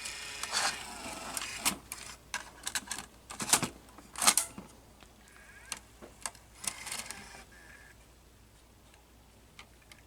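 Plastic clicks, snaps and rattles from handling a Canon ES270 8mm camcorder as its battery is fitted and a tape cassette is put into its compartment: a rattling stretch at first, then a run of sharp clicks, trailing off to a few fainter ones.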